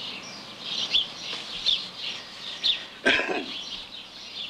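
Birds chirping in short calls repeated about once a second, with one louder, harsher squawk about three seconds in.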